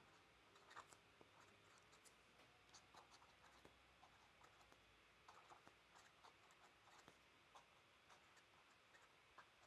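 Very faint scratching of a fountain pen nib on paper, many short irregular strokes as words are handwritten.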